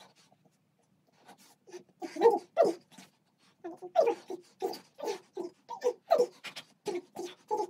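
A person panting hard in short, pitched bursts of breath during rapid push-ups: two loud breaths about two seconds in, then a fast, even run of about three a second.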